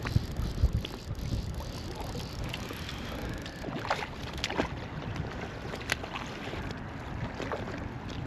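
Wind rumbling on the microphone and small waves lapping against a float tube, with a few sharp splashes about four and six seconds in from a hooked rainbow trout thrashing at the surface.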